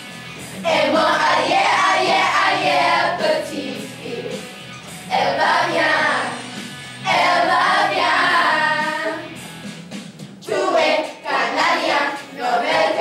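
A group of children singing a pop song together over musical accompaniment, in phrases of a few seconds with short breaks between them.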